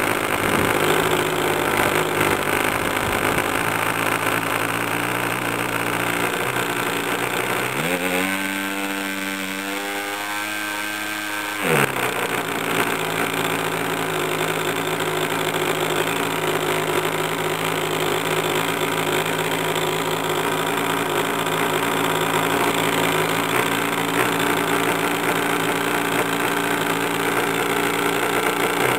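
PAW 2.49 cc two-stroke model diesel engine running steadily on home-made fuel while its compression is adjusted. About eight seconds in its note turns to a clean, even tone that rises slightly for a few seconds, then switches back to the rougher steady running with a sharp click.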